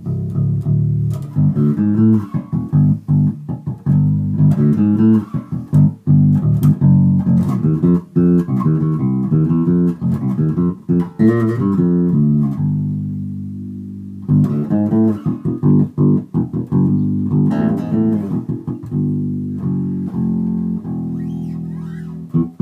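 Carvin SB5000 five-string electric bass played fingerstyle: runs of quick plucked notes, with one note left to ring and fade out about halfway through before the playing starts again.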